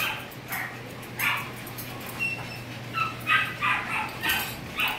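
A dog whining and yipping in repeated short, high-pitched calls.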